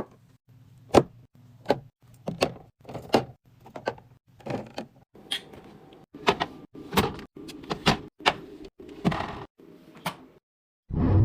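Restocking a mini fridge: a string of sharp clacks and knocks, about one a second, as containers and items are set in place. A louder dull thump comes near the end.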